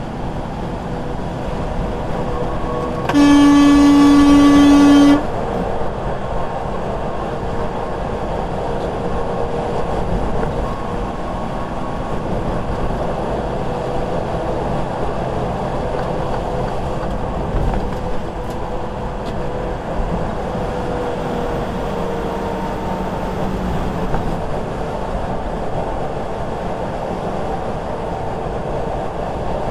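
Steady road and engine noise inside a vehicle's cab at highway speed, about 60 mph, with one loud horn blast lasting about two seconds, a few seconds in.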